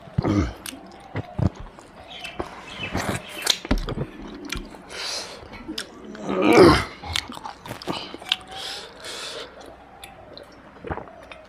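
Close-miked chewing, lip-smacking and finger-licking: wet mouth clicks as a man eats spicy mutton with his fingers and sucks the gravy off them, with one louder, longer mouth sound past the middle and a sip from a cup near the end.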